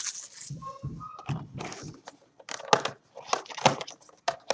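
Cardboard trading-card blaster box handled on a wooden tabletop: light knocks, taps and scrapes of the box being gripped and worked open, more of them in the second half.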